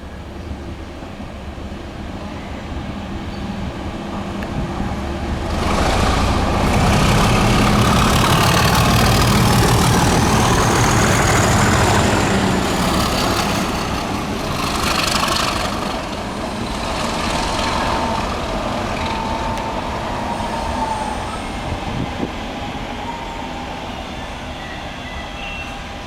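A pair of British Rail Class 37 diesel locomotives, English Electric V12 engines, pass under power with a loud engine thrash. It builds to a peak with a high whistle rising then falling in pitch. The train's wagons then run by and the sound dies away.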